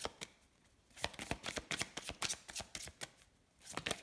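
A deck of large oracle cards being shuffled by hand: quick runs of card flicks and slaps, broken by two short pauses, one just after the start and one near the end.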